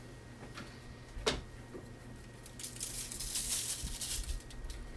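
Dry seasoning rub being shaken from a shaker bottle over a raw turkey: a rapid, light rattling patter that starts about two and a half seconds in. A single sharp click comes about a second in.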